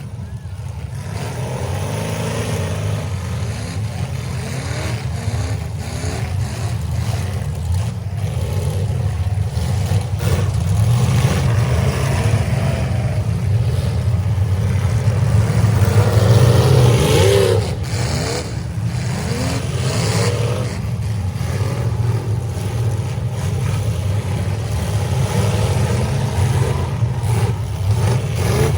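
Several demolition derby cars' engines revving hard at once, the pitch rising and falling as they accelerate and back off, with a few sharp bangs of cars hitting each other. It grows louder toward the middle and peaks about two-thirds of the way through.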